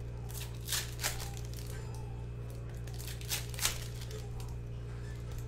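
Plastic wrappers of football trading-card fat packs crinkling and tearing as they are opened, in four short crackles, over a steady low hum.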